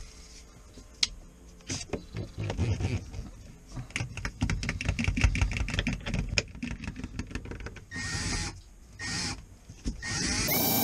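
Cordless drill driving a wire-out winder during a windshield cutout: rapid clicking and creaking as the cutting wire is pulled through the urethane, then two short drill runs and a steady drill run starting near the end.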